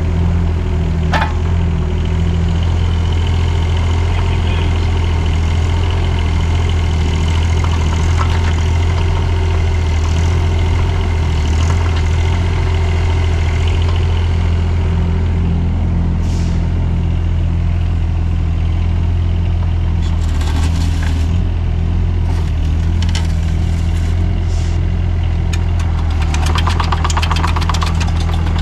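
An engine idling steadily with a constant low hum. A sharp click comes about a second in, and a quick run of fine ticks near the end.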